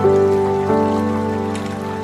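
Background music: an instrumental with sustained, ringing notes. A new note starts at the opening and another about two-thirds of a second in.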